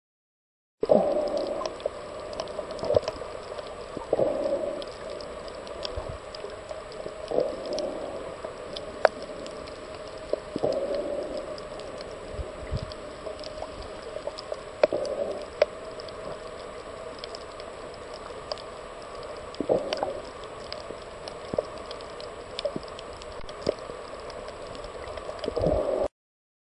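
Underwater sound through a camera's microphone: a steady wash of water with small clicks and bubbling, swelling in irregular surges every few seconds. It starts and cuts off abruptly.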